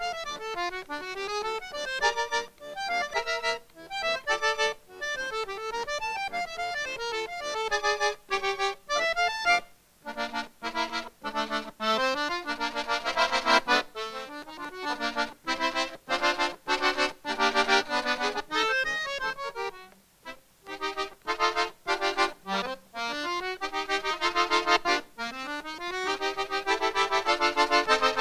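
Button accordion played solo: a running melody over chords, with two short breaks between phrases, about a third and two thirds of the way through.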